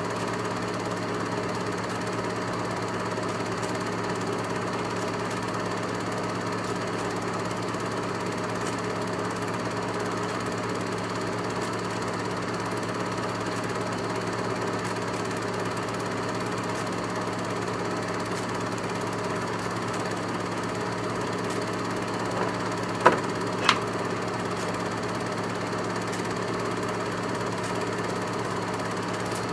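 Film projector running: a steady mechanical whir and hum from the motor and film mechanism, with two sharp clicks close together a little over three quarters of the way through.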